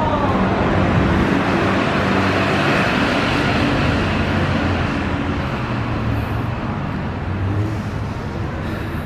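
City street traffic noise: a motor vehicle going by, a steady rush of engine and tyre noise that swells in the first few seconds and slowly eases.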